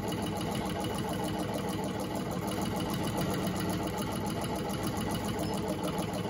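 Nearly 100-year-old Gritzner treadle sewing machine stitching steadily through fabric: a rapid, even clatter of the needle and mechanism running without pause.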